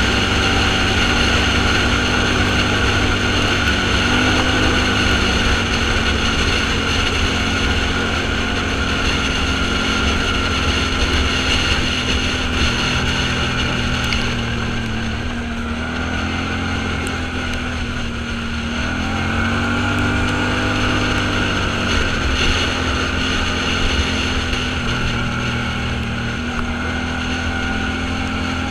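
Vehicle engine running steadily while driving, its pitch rising and falling slightly a few times, with wind and road noise.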